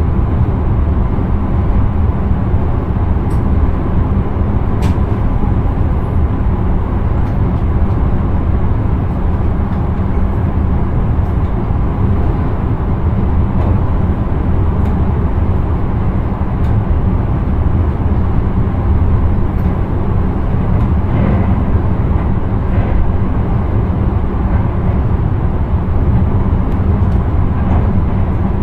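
Intercity train running along the line, heard inside the driver's cab: a steady, deep rumble of wheels on rail with a few faint clicks.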